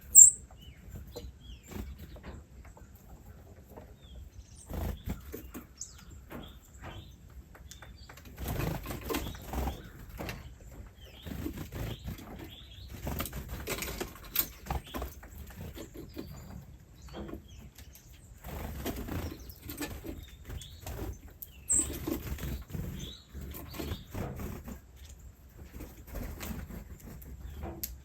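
Small birds fluttering and flapping their wings in irregular rustling bursts, with a sharp click at the very start.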